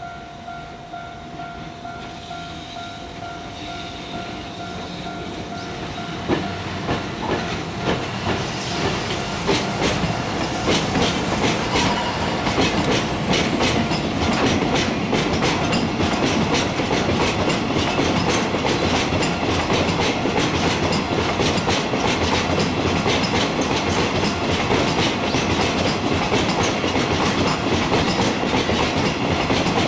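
Freight train passing, its wagon wheels clattering over the rail joints in a quick, even rhythm. The clatter grows louder over the first ten seconds or so, then holds steady as the wagons roll by.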